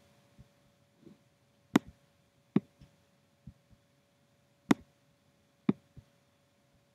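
Scattered sharp clicks of computer mouse and keyboard use, four of them louder than the rest, over a faint steady electrical hum.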